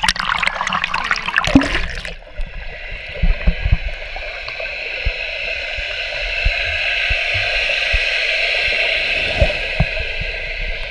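River water splashing around an action camera at the surface for about two seconds. The camera then goes under and the sound turns into a steady, muffled underwater rush, with a few low thumps.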